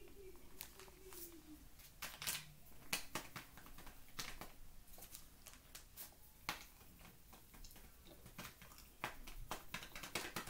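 Paper bag of cornstarch crinkling and crackling as it is handled, a quiet string of irregular sharp clicks.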